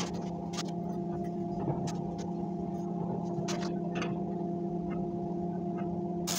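Steady machine hum with a few light metal clicks and taps as a flat steel cap is handled and fitted onto a welded steel chimney pipe.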